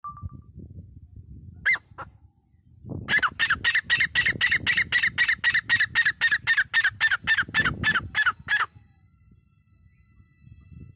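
Grey francolin calling: two single notes, then about a second later a loud rapid run of about two dozen harsh notes, roughly four a second, each falling in pitch, that goes on for about five seconds and stops abruptly.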